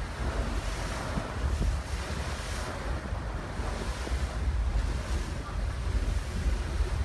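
Wind buffeting the microphone in a heavy, gusting low rumble over a steady rush of choppy harbour water, heard from the deck of a moving ferry.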